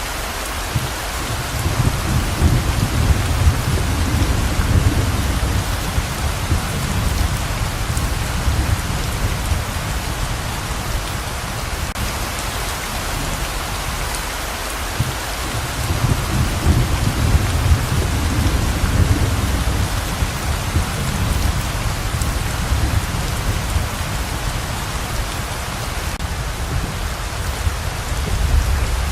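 Heavy rain pouring steadily, with a deep low rumble that swells up and fades away twice, about a second in and again about halfway, and starts again near the end.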